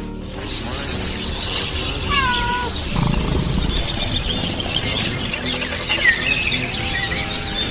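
Birdlike chirping and twittering: many short, high chirps with quick pitch glides, including a few short falling whistles about two seconds in.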